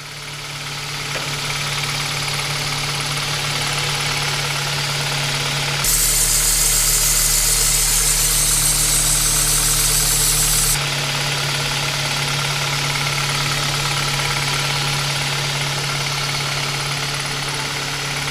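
Kia Ceed 1.6 petrol engine idling with its accessory drive running. For about five seconds in the middle, an abruptly cut-in louder stretch has a high-pitched squeal and whistle from the alternator drive belt, which is slipping. Before and after that stretch the engine runs smoothly without the squeal, the belt tensioned and treated with belt dressing spray.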